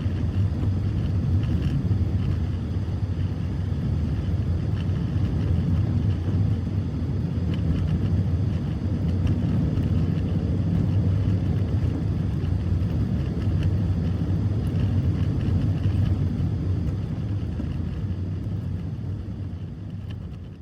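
Steady low rumble of a car on the move, fading out near the end.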